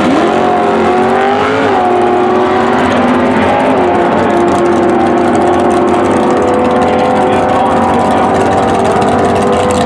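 A pickup truck and a car launch off the drag-strip start line at full throttle. Their engines climb in pitch and drop back at gear changes about two and four seconds in, then hold a steadier note as they run down the track.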